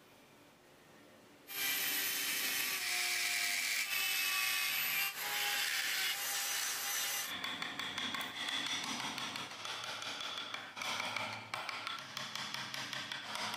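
Handheld rotary carving tool starts about a second and a half in and grinds into hardwood with a steady whine that shifts in pitch as the bit bites. About halfway through it gives way to rough, rapid scraping strokes of a hand chisel paring the wood.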